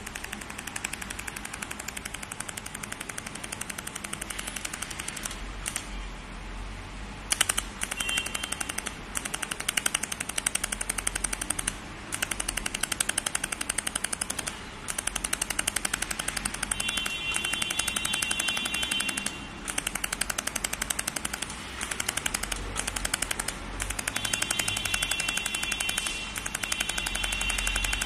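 Pulsed fiber laser welder firing on a flange pipe, each pulse a sharp tick in a fast, even rattle that breaks off briefly several times and starts again.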